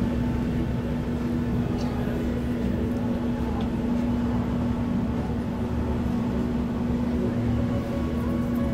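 Steady low engine drone of a ship and motorboats under way, with a constant hum.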